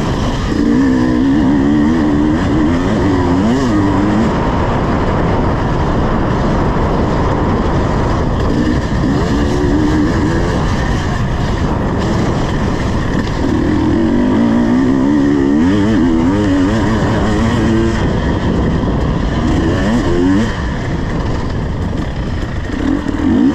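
Two-stroke engine of a KTM 250 EXC enduro motorcycle being ridden, its revs rising and falling again and again through the gears and throttle changes over a loud steady noise of riding.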